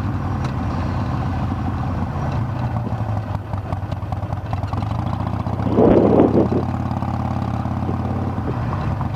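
Harley-Davidson Sportster's air-cooled V-twin engine running steadily on a slow ride, with a brief rush of noise about six seconds in.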